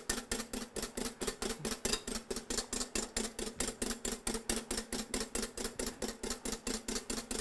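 Wire balloon whisk beating egg whites and sugar by hand in a glass bowl, a fast steady clicking rhythm of about seven strokes a second as the whisk strikes the bowl. The whites are starting to turn foamy on their way to stiff peaks.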